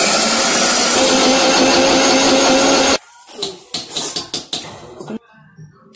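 Electric mixer grinder with a steel jar running at full speed, a steady motor whine over the grinding noise, switched off abruptly about three seconds in. A few clicks and knocks follow.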